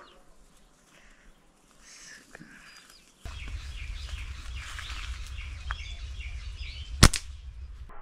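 Outdoor ambience with faint bird chirps. A low rumble on the microphone starts suddenly about three seconds in. One sharp crack comes about seven seconds in.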